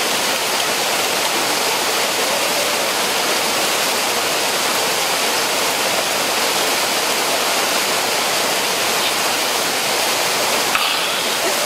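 Waterfall pouring over rocks into a stream: a steady, even rush of falling water.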